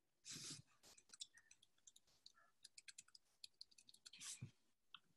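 Near silence, broken by faint, scattered clicks and two short, soft rustling noises, one just after the start and one near the end.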